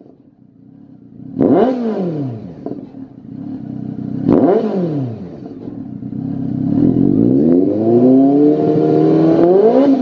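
Honda CB1300's inline-four engine through a Lextek XP10 aftermarket silencer, revved on the stand: two quick throttle blips that rise and fall, then a slower climb in revs held high near the end.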